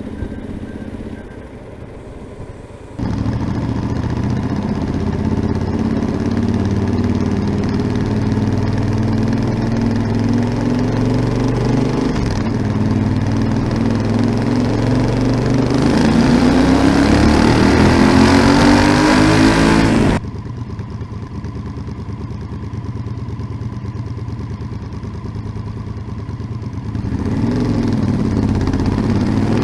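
Yamaha Super Ténéré XT1200ZE's parallel-twin engine through an aftermarket Delkevic 343 mm oval carbon-tipped exhaust. The engine sound comes in abruptly about three seconds in and runs steadily, then rises in pitch for several seconds as the bike accelerates, drops off sharply, and builds again near the end.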